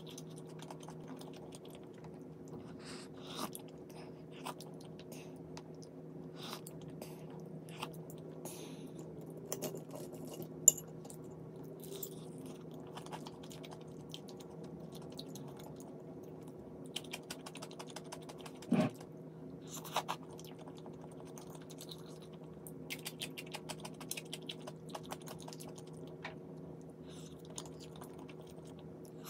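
Chewing of food with scattered clicks and taps of a metal spoon and chopsticks against the dishes, over a steady low hum. One sharp click about ten seconds in is the loudest sound, and a duller knock comes a little before twenty seconds.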